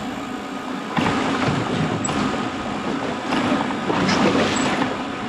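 Steady low hum of a boat engine running under a constant hiss of wind and water, a little louder from about a second in.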